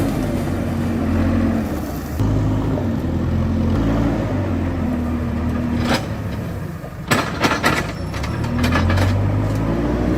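JCB 4CX backhoe loader's diesel engine running, its revs rising and falling as it works, with a short clatter of knocks about seven seconds in.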